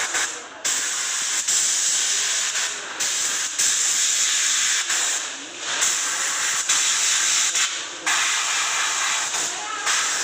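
Airbrush spray gun spraying paint on compressed air: a steady hiss that drops out for a moment several times as the trigger is eased off and pressed again.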